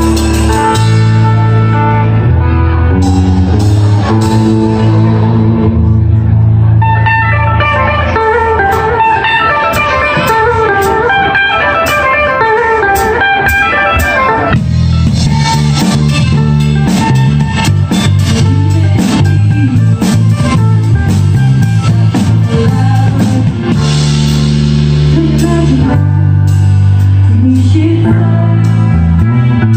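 Live band playing an instrumental passage: bass guitar holding long low notes over a drum kit, with a fast run of higher melody notes from about a quarter of the way in to about halfway.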